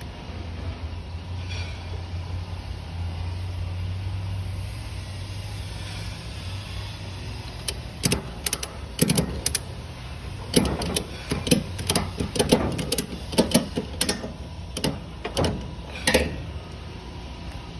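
Ratchet tie-down strap being cinched down on a flatbed load: a run of sharp ratchet clicks and knocks starting about halfway through, over a steady low engine hum.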